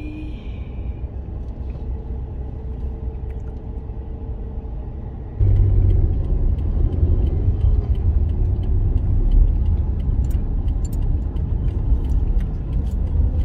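A car heard from inside its cabin, rumbling low while waiting at a traffic light, then suddenly louder about five seconds in as it pulls away and drives on. Scattered light clicks sound in the second half.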